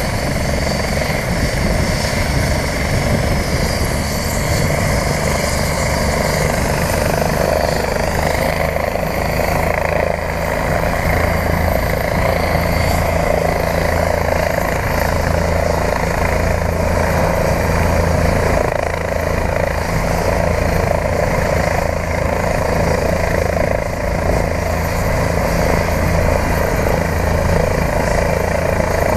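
Helicopters, one of them a Eurocopter EC-135, running on the ground: a steady high turbine whine over rotor and engine noise, holding at one level without spooling up to lift off.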